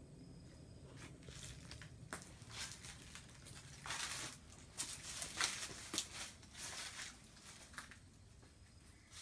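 Footsteps crunching over dry leaves and twigs, a run of irregular crackles that is loudest midway through.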